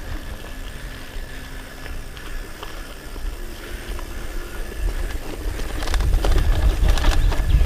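Hardtail mountain bike rolling fast over a dirt singletrack: a low wind rumble on the microphone with the tyres and bike rattling over bumps, growing louder with clusters of rattles over the last couple of seconds.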